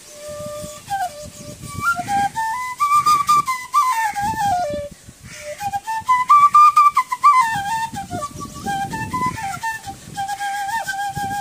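Bansuri (bamboo transverse flute) playing a Nagpuri folk tune. The solo melody climbs step by step and falls back twice, then settles into a long held note near the end.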